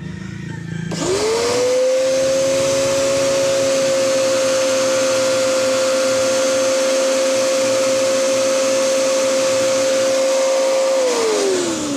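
Powerhouse electric pressure washer starts about a second in: its motor and pump run up quickly to a steady hum over the hiss of the spray jet, then wind down near the end as it is switched off. It runs evenly without stuttering, since its automatic pressure switch has been bypassed and the trigger spring removed so that it runs continuously.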